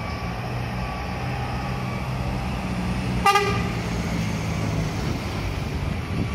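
Medium-size bus's diesel engine running as the bus drives off, with one short horn toot a little past halfway.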